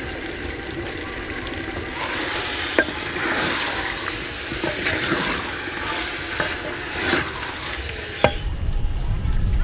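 Chicken pieces sizzling in ghee in an earthenware handi, stirred with a wooden spoon from about two seconds in: the spoon scrapes the clay and shifts the meat, with a couple of sharp knocks. Near the end this gives way to a low rumble.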